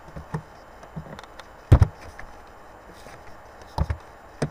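A few separate computer keyboard keystrokes, sharp taps at irregular spacing; the loudest comes a little under two seconds in.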